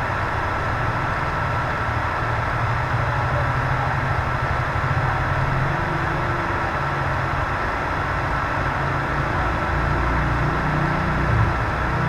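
A steady low hum with hiss, with no distinct events.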